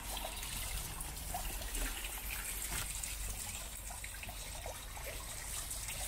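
Shallow brook trickling over a sandstone bed, with a few small splashes of someone wading upstream through the water.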